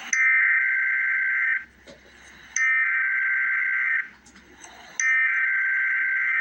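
Emergency Alert System SAME header: three bursts of harsh, buzzy digital data tones, each about a second and a half long, with about a second's gap between them. This is the coded data that opens an emergency alert.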